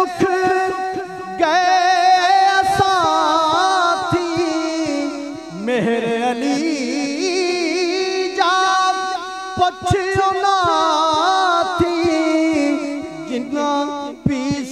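A man singing a devotional kalam unaccompanied, in long, wavering, ornamented held notes with short breaks for breath.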